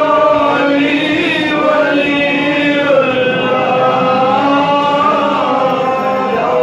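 Men chanting a Muharram mourning chant together, in long drawn-out held notes.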